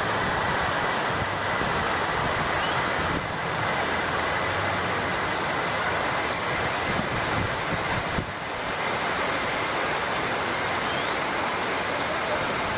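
Steady rushing noise of a heavy rainstorm, rain and wind together, without letting up.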